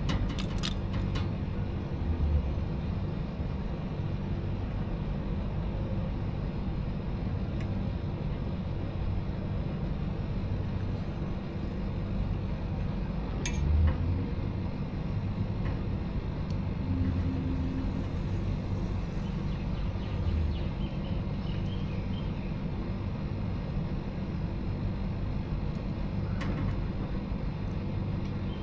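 Steady low mechanical hum of a running motor, with one sharp click about halfway through.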